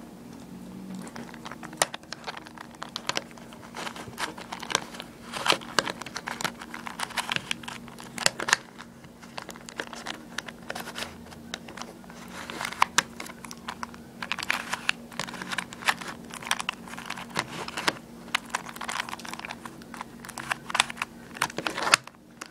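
A 3x3 Rubik's cube being twisted by hand, its plastic layers clicking and clacking in quick runs of turns with short pauses between, starting about two seconds in.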